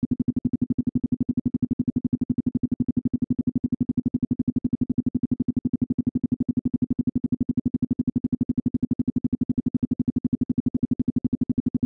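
Isochronic tone: a single synthesized low-pitched tone pulsing rapidly and evenly on and off, several pulses a second, at a steady pitch.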